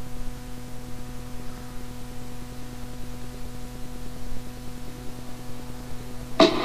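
Steady electrical hum with a faint hiss under it. Music comes back in near the end.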